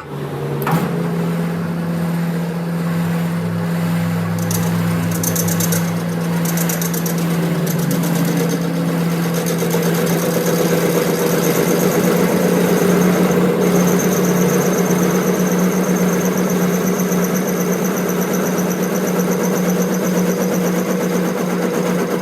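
Machine motor starting up and then running steadily, with a strong steady hum and a faint high whine above it.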